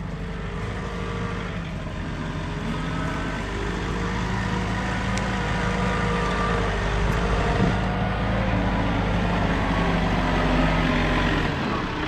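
John Deere 4066M compact tractor's diesel engine running steadily, growing louder as the tractor comes nearer.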